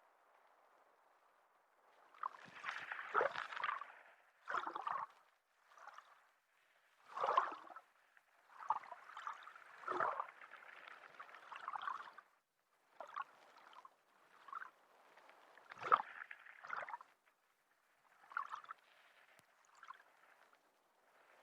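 Underwater recording of water bubbling and gurgling in irregular bursts, separated by brief quieter gaps. The strongest bursts come about 3, 7, 10 and 16 seconds in.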